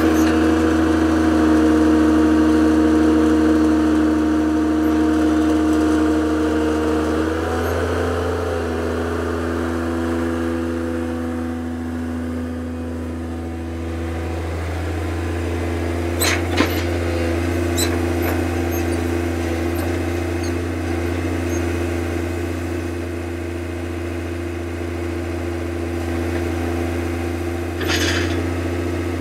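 Komatsu PC220LC excavator's diesel engine running steadily while the upper structure swings around on its slew ring. The drone steps in pitch twice as the hydraulics take load. A short clank comes about halfway through and another near the end.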